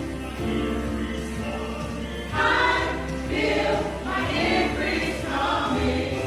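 Gospel choir singing over a sustained keyboard-and-bass accompaniment, with stronger, brighter phrases starting a little over two seconds in.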